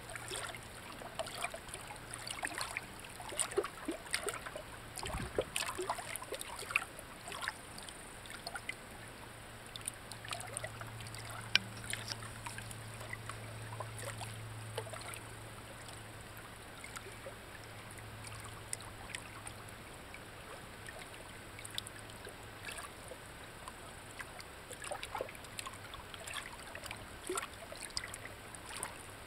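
Water trickling in a shallow stream, with frequent small clicks and pops over a steady low hum.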